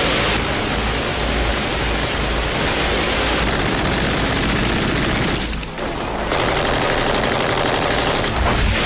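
Sustained automatic gunfire from boat-mounted machine guns, dense and continuous, with a brief gap a little past the middle.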